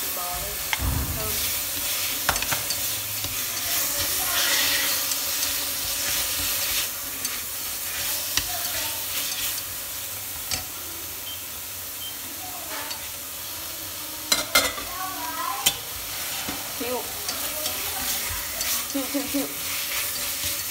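Sliced beef frying in hot oil in a stainless steel pot, a steady sizzle as it is stirred with chopsticks. A dull thump about a second in as the beef goes in from a plate, and a few sharp clicks of the chopsticks against the pot about two-thirds of the way through.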